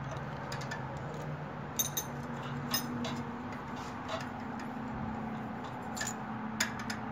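Scattered light metallic clicks and taps of a feeler gauge and wrench against the rocker arms and valve adjuster nuts of a Honda small engine during a valve lash check, over a steady low hum.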